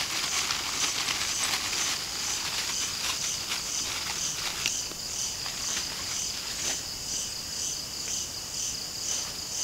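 Crickets trilling steadily in a regular pulsing rhythm. Over this, a thin plastic bag crinkles and rustles for the first half or so, as krupuk crackers are taken out of it, then only a few stray crackles.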